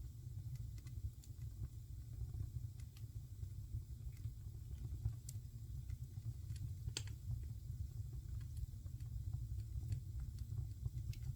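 Wood fire crackling in a fireplace: scattered sharp pops and snaps, with one louder crack about seven seconds in, over a steady low rumble.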